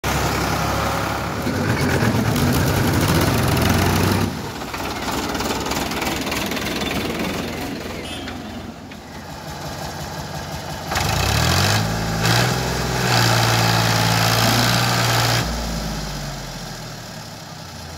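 Diesel tractor engines running. At first one idles steadily; about eleven seconds in an engine revs up and holds a higher steady note for a few seconds, then fades away.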